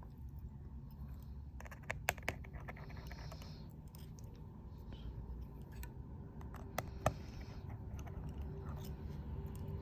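Small repair tools clicking and scraping against an iPhone's internals, with a few sharp ticks about two seconds in and again about seven seconds in, over a low steady hum.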